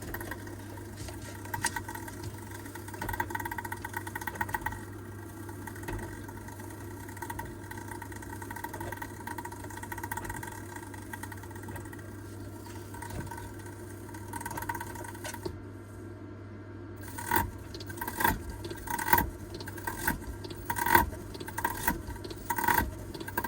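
Panasonic NA-VG1100R drum washer-dryer running with a steady hum and a whine. From about two-thirds of the way through, loud knocks repeat about once a second: the abnormal noise the machine is recorded for.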